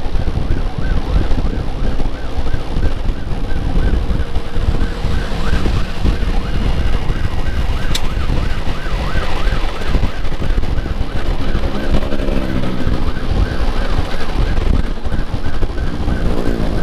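Electronic emergency siren on a fast yelp, about three to four sweeps a second, then briefly a slower rising and falling wail, over heavy wind and road noise from a moving motorcycle.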